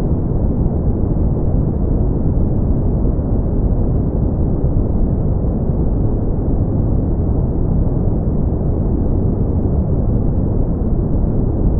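Steady brown noise: an even, deep rumbling hiss with most of its energy in the low end and little above the midrange, unchanging throughout.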